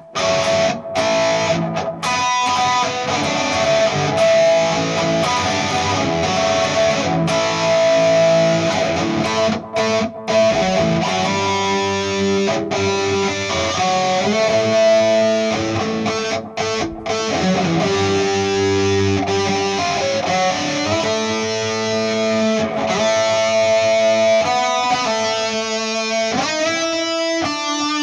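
Telecaster electric guitar played through an amplifier: held notes and strummed chords, with several short, sudden stops between phrases.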